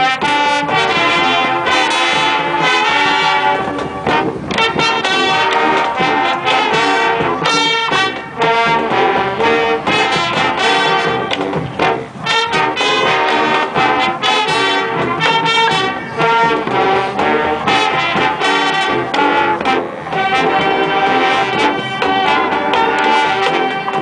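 A high school marching band playing loud, with brass including sousaphones carrying the tune over punchy drum hits, and brief breaks between phrases.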